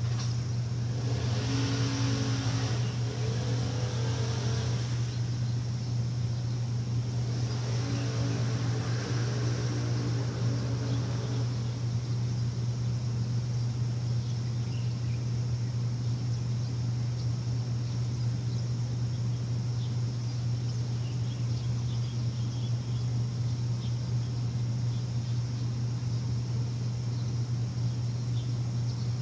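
A steady low machine hum, with two louder engine-like swells of a few seconds each, about two and eight seconds in.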